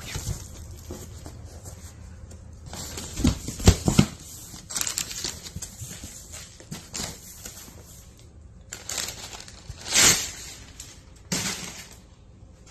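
Crumpled brown kraft packing paper rustling and crinkling as it is handled and pulled out of a cardboard box, in irregular bursts. A few dull thumps about three to four seconds in, and a loud rustle near ten seconds.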